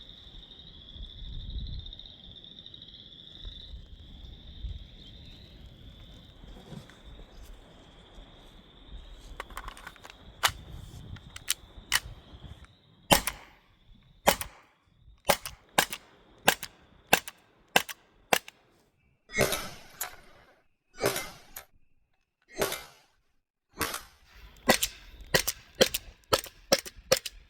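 T4E HK VP9 .43-calibre CO2 paintball pistol being fired, about twenty sharp shots starting about ten seconds in, some a second or more apart and others in quick runs, several of them longer and hissier. Before the shooting, a steady high whine is heard.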